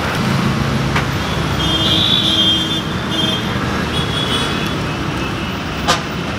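Steady road traffic noise from vehicles passing on a busy street, with high thin tones coming and going in the middle and a sharp click near the end.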